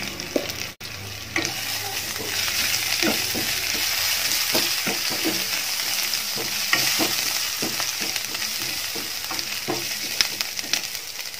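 Chilli powder, ginger-garlic paste and green chillies sizzling in hot oil in a non-stick frying pan while a spatula stirs them, scraping and tapping against the pan many times.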